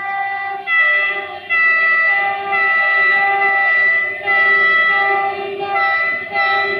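A diesel-electric locomotive's horn sounding a long series of held notes that step between two or more pitches, as the locomotive approaches out of a tunnel.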